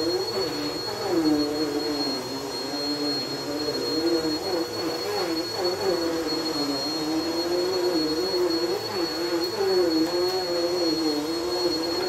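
Upright bagless vacuum cleaner running while pushed back and forth over a rug: a steady high whine over a lower hum that keeps wavering up and down in pitch.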